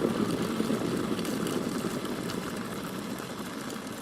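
Kettle rumbling as its water boils, a dense steady churning with faint scattered ticks, fading steadily.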